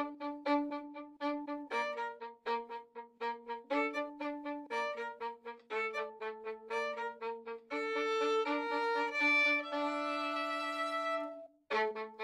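Instrumental music: a quick, even run of short repeated notes over held lower notes, swelling into a long sustained chord about two-thirds through, then a brief break before the short-note pattern returns near the end.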